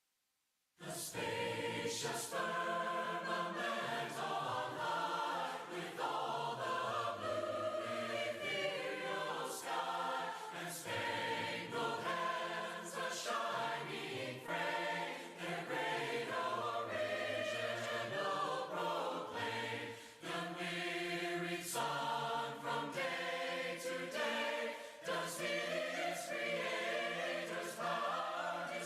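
Many voices singing a hymn together in parts, unaccompanied, starting just under a second in after a brief silence.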